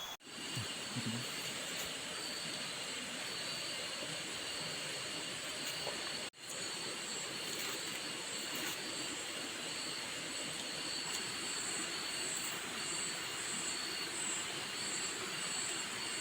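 Heavy rain falling steadily, a continuous even hiss, briefly cutting out twice: near the start and about six seconds in.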